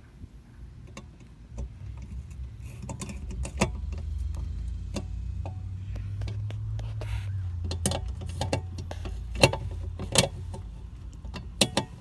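Scattered clicks and knocks of hands fitting and tightening a headlight bulb's retainer clip and screw in a Honda Fit headlight housing, over a low rumble. The two sharpest clicks come a little past the middle.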